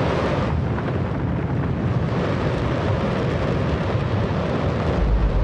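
Space Shuttle main engine test-firing on a test stand: a loud, steady rushing noise over a deep rumble, the rumble growing heavier near the end.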